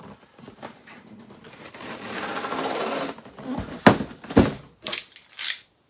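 Large cardboard toy box being handled: cardboard scraping as the inner box slides against the outer box for about a second, then several sharp knocks and thumps, the loudest around four seconds in.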